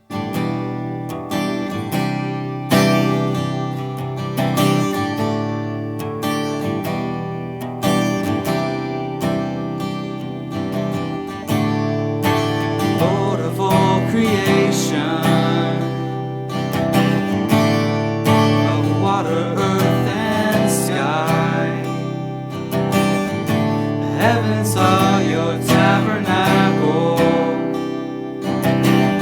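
Acoustic guitar strumming a steady rhythm, with a voice singing from about twelve seconds in.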